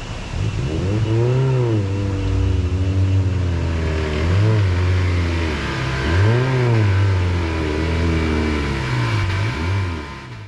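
Car engine revving up and dropping back several times, with steady hiss behind it.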